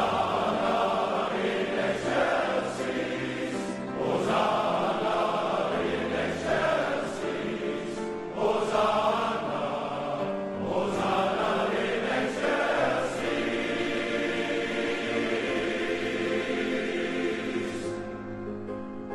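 Male voice choir singing in full voice, with piano accompaniment. The voices stop near the end, leaving the piano sounding on its own.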